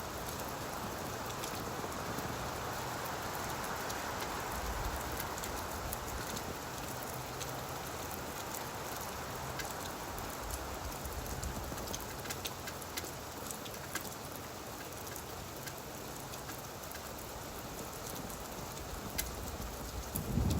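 Rain falling on leaves: a steady hiss with scattered sharp ticks of single drops.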